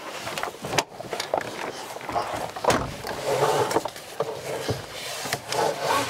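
Rustling and creaking of someone climbing into a car's driver's seat, with several sharp clicks and knocks, and seatbelt webbing being drawn out across the body near the end.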